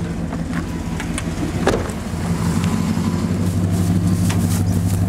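Dodge 3/4-ton pickup's engine running steadily, heard from inside the cab as the truck creeps along; the engine note picks up slightly about two seconds in.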